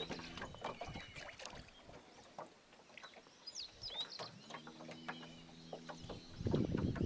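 Short, repeated high bird chirps over a faint low hum, with a louder stretch of noise and knocks near the end.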